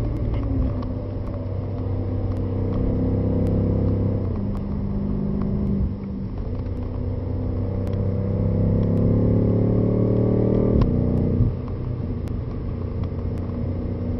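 BMW M5's twin-turbo V8 heard from inside the cabin at racing speed. The engine note falls as the car slows, climbs steadily under hard acceleration for about five seconds, then drops sharply at an upshift near the end.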